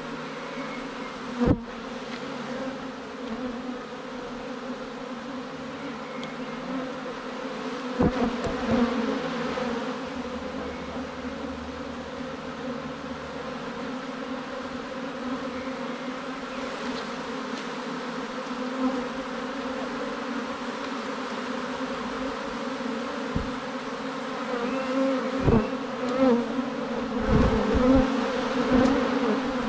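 A swarm of honeybees humming, a steady buzz of many bees, with a few sudden thumps, most of them in the last few seconds.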